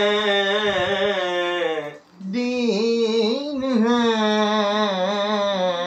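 Unaccompanied singing of a naat line, one voice drawing out long, wavering notes. The voice breaks off briefly about two seconds in, then sings the next phrase.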